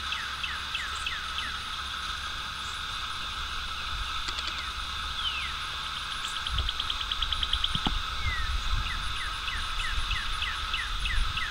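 Spring swamp chorus of frogs and birds: continuous high trilling with short downward chirps repeated a few times a second, and a fast rattling trill just past the middle. A low rumble comes and goes underneath.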